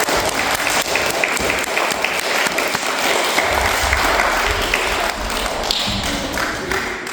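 A hall full of young children applauding, a steady patter of many small hands clapping that thins out near the end.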